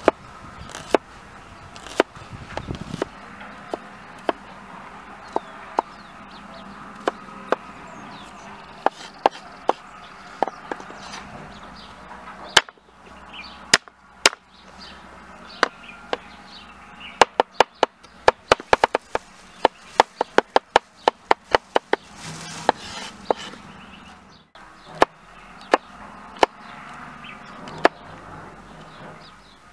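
Kitchen knife chopping on a wooden cutting board, slicing red onion and green chili, each stroke a sharp knock of the blade on the board. The knocks come in ones and twos, with a fast run of rapid chops a little past halfway.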